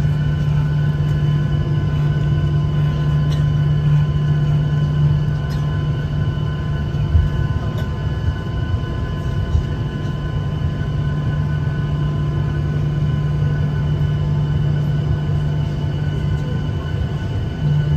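Airliner cabin noise while taxiing: the jet engines running with a steady low hum and several steady whining tones above it. The low hum eases off through the middle and swells again near the end.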